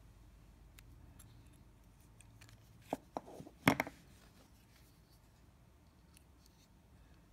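Hands handling small fishing-tackle tools: two light clicks about three seconds in, then one louder clack, with faint rustling between.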